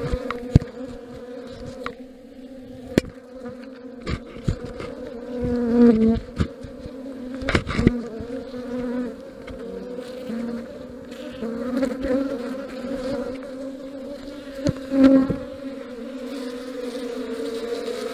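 A honeybee colony buzzing loud and steady at close range inside a hollow oak trunk that has just been cut open and smoked. Occasional sharp taps and knocks cut through the hum, the loudest a little before the middle and again about three quarters of the way through.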